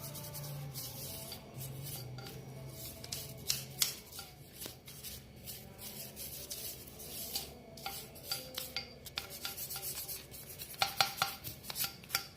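Irregular rubbing and scraping strokes on an engine block as it is scrubbed clean of grime and rust, with a few sharper scrapes near the end.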